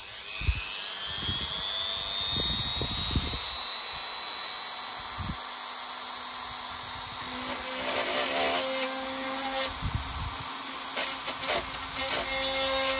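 Small handheld rotary multitool running with a fine drill bit. Its whine rises in pitch over the first few seconds as it comes up to speed, then holds steady. From about halfway the sound turns rougher and uneven as the bit drills into the model hull's wooden planking, with a few low knocks of handling.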